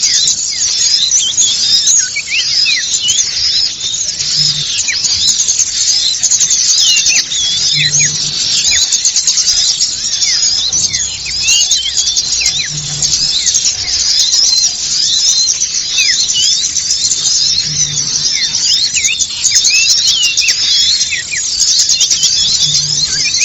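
Bird-luring recording of many small birds calling at once: a dense, unbroken chatter of quick high-pitched chirps and squeaks, the noisy flock calls used to draw small birds in. A soft low pulse recurs about every five seconds underneath.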